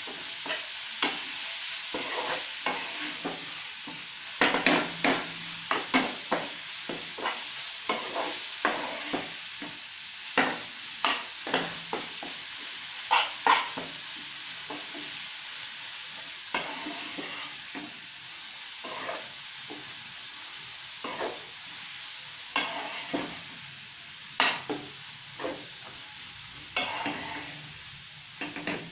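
Ponnaganti greens (dwarf copperleaf) sizzling in oil in a frying pan while a spatula stirs them, with a steady frying hiss under irregular scrapes and taps of the spatula against the pan. The scraping comes in busy spells a few seconds in, around the middle and near the end.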